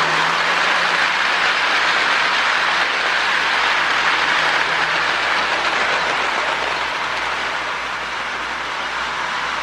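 Lionel MPC-era U-boat toy diesel locomotive running smoothly on toy train track, its electric motor whirring and the wheels of it and its string of Marx log cars rolling on the rails. A low steady hum underneath fades about halfway through, and the running grows a little quieter after that.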